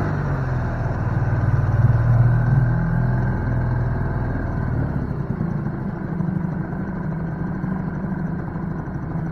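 Boat outboard motor running steadily at low speed, a low engine drone with an even pulse.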